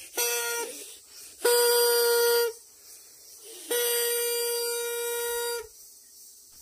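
A horn sounded in three blasts on one steady pitch: a short toot, then a blast of about a second, then a longer one of about two seconds, each sagging slightly in pitch as it stops.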